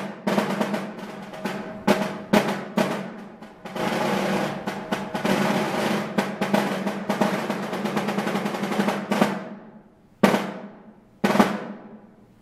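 Concert snare drum played with sticks: accented strokes and rolls, with a long sustained roll from about four seconds in. Near the end come two single hard strokes, each left to ring out, closing the snare drum etude.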